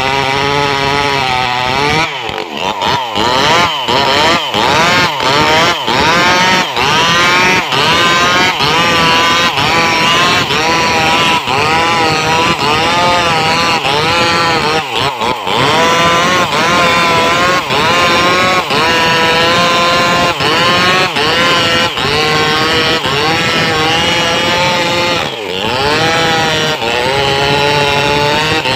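Stihl MS381 two-stroke chainsaw at full throttle, cutting through a large felled log. The engine note dips under load and picks up again over and over as the chain bites, with a few deeper drops in revs.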